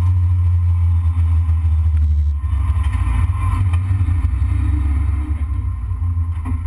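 Toyota Corolla race car's engine heard from inside the cabin, running at low revs with a deep steady note. About two and a half seconds in the note turns rougher and less even.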